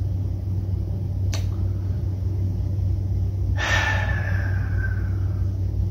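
Steady low hum or rumble, with a single short click about a second and a half in and a breathy exhale near four seconds.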